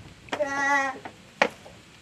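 A brief held note with a slight waver, then a single sharp knock about a second and a half in: a foot landing on the wooden plank ramp.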